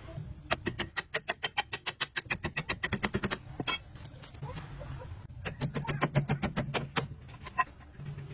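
Ratchet wrench clicking rapidly, about eight clicks a second, in two runs with a pause between, while a fastener is worked on the truck's rear axle.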